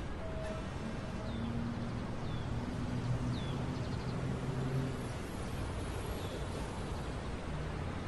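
Street ambience: a steady traffic rumble with a vehicle's low hum for a few seconds, and a few short high chirps like birds.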